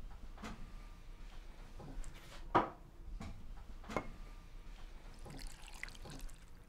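A few sharp knocks of a glass tumbler and bottle on a wooden table, the loudest about two and a half seconds in. In the last second or two, liquid pours from the bottle into the cut-glass tumbler.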